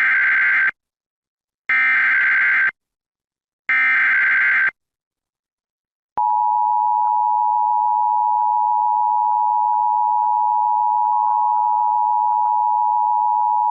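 Emergency Alert System SAME header: three identical one-second bursts of digital data tones, about two seconds apart. About six seconds in, the steady two-tone EAS attention signal starts and holds, heralding a National Weather Service flash flood warning.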